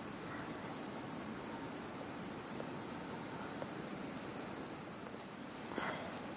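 Steady, high-pitched drone of a chorus of insects, unchanging throughout, over a faint low rushing background.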